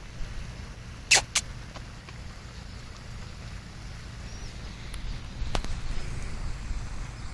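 Wind rumbling on the microphone, with two sharp clicks close together about a second in and a fainter click a little after the middle.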